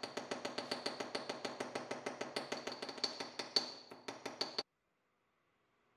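Hammer striking a copper wire laid on the anvil of a metal bench vise in rapid light blows, about six a second, each with a ringing metallic ping. The blows spread out slightly near the end and stop abruptly a little over four and a half seconds in.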